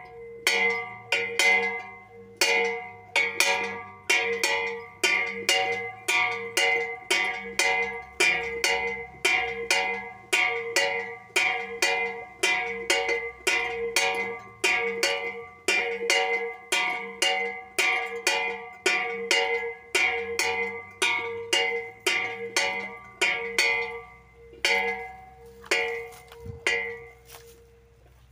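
Small homemade bell made from a metal pot, swung back and forth by hand so the clapper strikes the rim on alternate sides, about two strikes a second. Each strike rings bright and metallic, and a steady tone hangs on between strikes; the ringing stops near the end.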